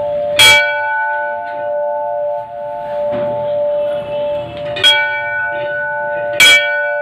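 Large brass temple bell rung by hand. It is struck three times, about half a second in, near five seconds and again a second and a half later, and its ringing carries on between the strikes.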